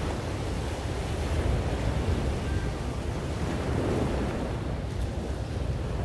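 Steady wind buffeting the microphone in a low, uneven rumble over a hiss of wind and surf from the sea.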